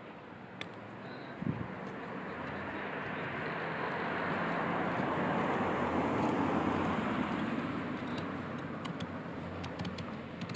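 A road vehicle passing by: its steady noise swells to a peak about halfway through and then fades. A few light clicks sound over it.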